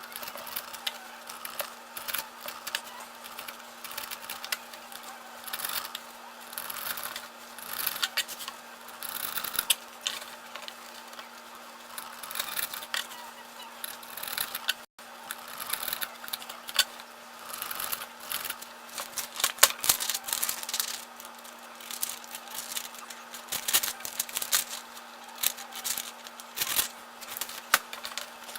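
Leatherman multitool knife blade cutting repeatedly through strands in an edge retention test, with short irregular scraping strokes about once a second as the edge dulls. A steady low hum runs underneath.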